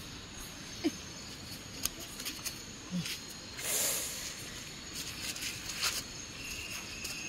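Night insects calling steadily in high thin tones, with a few small clicks and a short splash of water about four seconds in as fish are rinsed by hand in a plastic basin.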